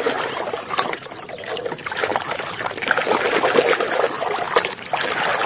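Water trickling and splashing as a muddy toy vehicle is washed by hand in a container of clean water, with small knocks and clicks from the handling.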